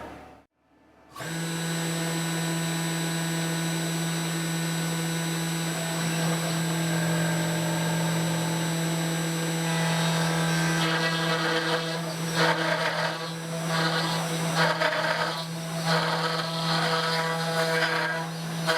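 Desktop CNC router's spindle starting about a second in and running with a steady whine, a 1/8-inch two-flute spiral upcut bit in it. From about ten seconds in, an uneven rattling cutting noise joins it as the bit cuts into the wood on the cutout pass around the edge.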